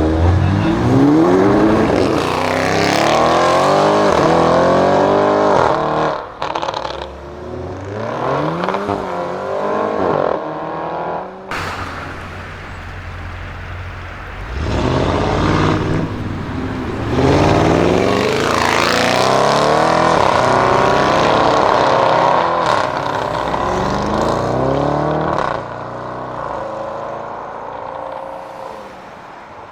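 Audi RS6 Avant C7's twin-turbo V8 through a Milltek exhaust, accelerating hard several times. Its pitch climbs through the gears with a short dip at each shift. The longest pull starts about fifteen seconds in and fades away near the end.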